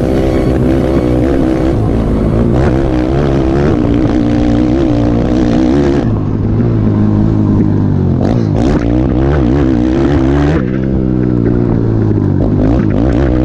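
Motocross bike engine running hard under the onboard camera, its pitch rising and falling as the rider accelerates, shifts and backs off along the track.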